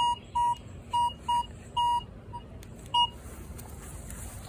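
Minelab Vanquish 440 metal detector sounding a run of short, same-pitched beeps, about seven in the first three seconds, irregularly spaced, as the coil passes over a modern dime lying on the ground; the beeps are its target signal for the coin.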